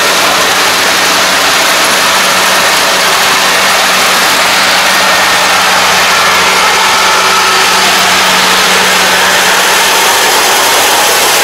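Kubota ARN460 combine harvester's diesel engine and machinery running steadily under load as it cuts and threshes rice, a loud, even drone.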